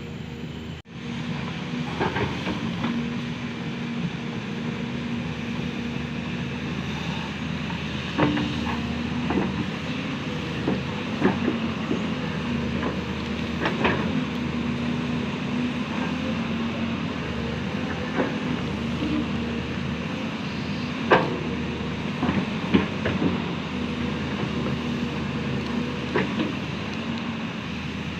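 LiuGong excavator at work: its diesel engine running steadily under load, with a sharp metal clank every few seconds.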